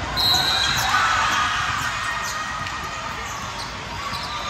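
Basketball game in a gym: a ball bouncing on the court and a brief high-pitched squeak about a quarter second in, over a background of voices in the hall.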